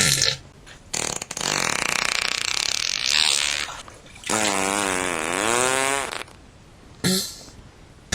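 Fart sound effects one after another. First a long, noisy, fluttering one lasting about three seconds, then a pitched one whose tone dips and rises again, then a short blip near the end.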